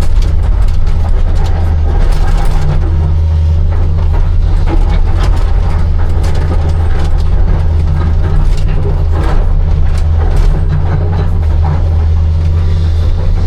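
Hitachi 260 excavator's diesel engine running steadily under working load, with scattered clanks and knocks from the digging.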